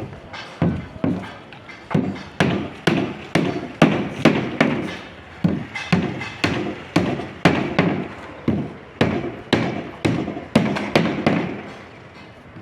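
A long run of repeated thuds, about two blows a second in a steady working rhythm, broken by two short pauses.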